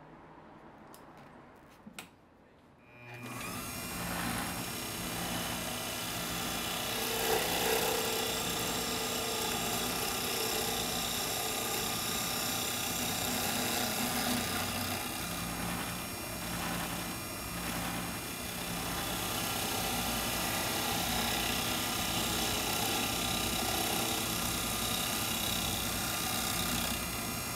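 A couple of faint clicks, then about three seconds in a small wood lathe starts up and runs steadily while a turning tool cuts into the spinning sugar maple pen blank, throwing off shavings.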